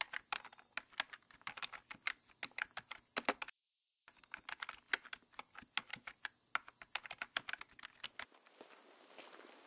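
Quick, irregular clicking of keyboard typing, with a brief pause about three and a half seconds in, over a steady high trilling of insects.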